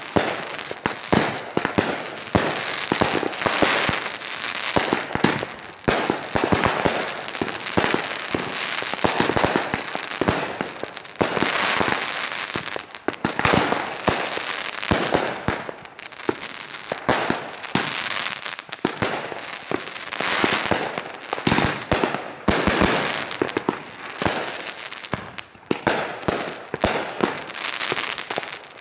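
Consumer aerial fireworks firing in a rapid barrage: a dense run of launch thumps, bursts and crackling, with a few brief lulls.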